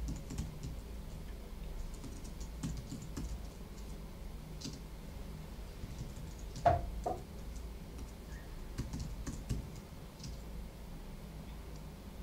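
Typing on a computer keyboard: irregular, scattered keystrokes, with a louder double knock a little past halfway.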